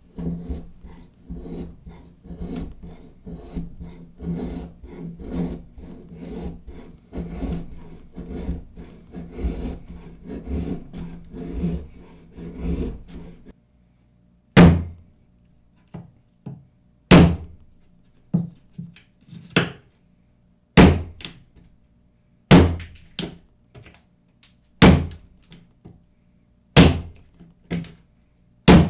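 Ka-Bar Gila folding knife at work on wood. First comes a run of rapid, even cutting strokes, a few a second. Then, about halfway through, a series of sharp chopping blows a second or two apart as the knife is swung into wood.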